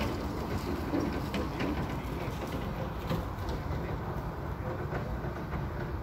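Steady low outdoor background noise, with a dove cooing a few times in the first couple of seconds.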